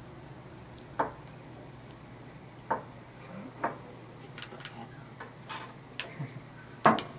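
Glass bottles and small tools knocked and set down on a lab bench: a scattering of sharp clicks and clinks about a second apart, the loudest near the end.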